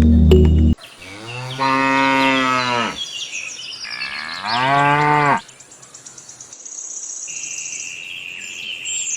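Cow mooing twice, two long calls of about a second and a half each that rise and then fall in pitch, after background music cuts off suddenly. Near the end a high, steady chirping of birds or insects comes in.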